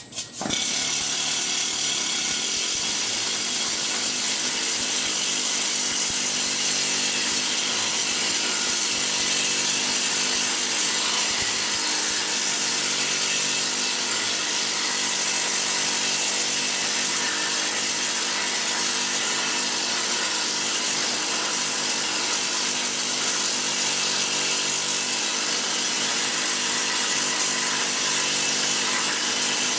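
Planishing hammer running nonstop, its upper die hammering a steel sheet against the lower die in a rapid, even buzz as the sheet is stretched into a bowl shape. It starts up right at the outset and keeps a steady pace and level.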